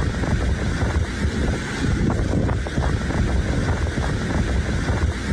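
Strong sandstorm wind buffeting the microphone: a heavy, steady low rumble with faint light ticks scattered through it.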